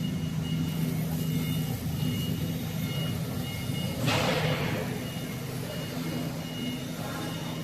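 Laser mirror-processing machine running: a steady low hum with a high tone that comes and goes, and a brief hiss falling in pitch about four seconds in.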